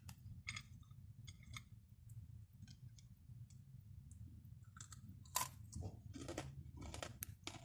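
Faint eating sounds: crunchy chewing of grilled pork belly with small clicks, scattered at first and coming more often in the last couple of seconds.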